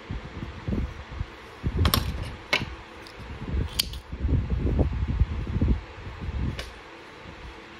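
Cotton crochet thread and fabric handled close to the microphone, with a few sharp clicks from small black thread snips as they are picked up and opened, three in the first half and one more near the end.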